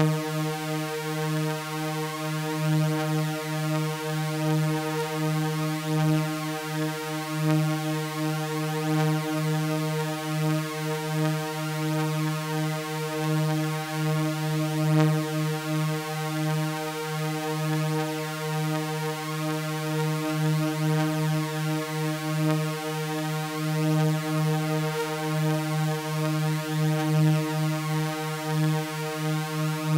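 Synthesized drone of layered sawtooth waves holding one unchanging low tone, with a gentle wavering in its level.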